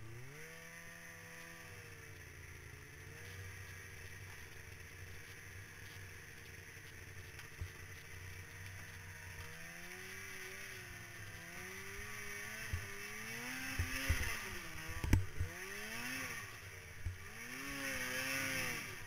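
Snowmobile engine running at a steady pitch for about ten seconds, then revving up and down again and again as the sled is ridden harder, with a few sharp knocks about fifteen seconds in.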